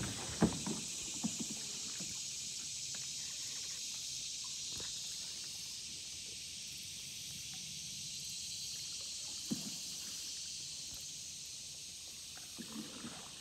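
Steady high-pitched hiss of an insect chorus in the summer riverside woods, with a few light knocks near the start, once about ten seconds in, and again near the end.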